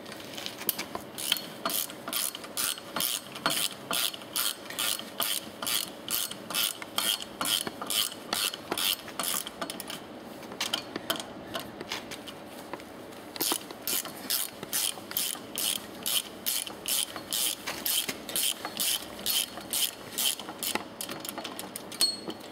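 Ratchet wrench clicking in steady even runs, about three clicks a second, as it undoes the nuts holding the air chamber onto a piston pump's head. The clicking stops for a few seconds about halfway through, then resumes.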